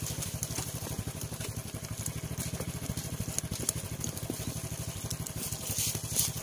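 A small engine running steadily with a fast low pulsing, under light crackling and clicking.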